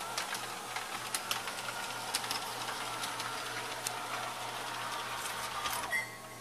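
LGB G gauge model locomotive running along the track: its electric motor and gears whine steadily, with scattered clicks of the wheels on the rails. About six seconds in, the whine falls away and stops as the battery-powered reverse controller halts the train at the end of the track.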